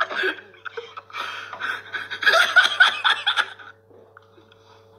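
People laughing in short, choppy bursts that stop about three-quarters of the way through.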